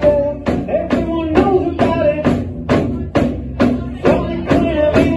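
Live ukulele rock band playing, with a drum kit keeping a steady beat of about two hits a second under the strummed ukuleles.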